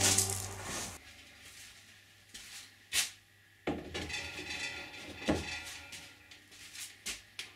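Kayak bulkhead panels being picked up and handled, clacking against each other in a few sharp knocks, the loudest about three seconds in.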